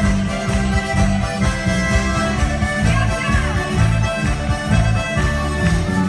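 Live folk-pop band music from the stage with accordion, electric guitar and double bass over a steady, pulsing bass beat.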